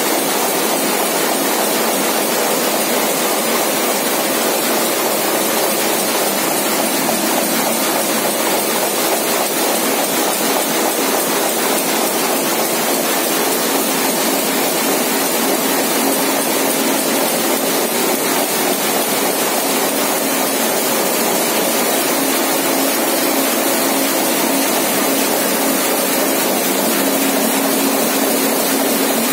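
Komori Lithrone 426 four-colour sheetfed offset press running: a loud, steady machine noise with a low steady tone that grows stronger in the second half.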